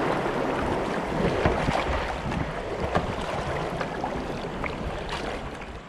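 Fast shallow river water rushing and splashing around a kayak's hull as it runs a riffle, with many small sharp splashes and drips; the rush slowly gets quieter.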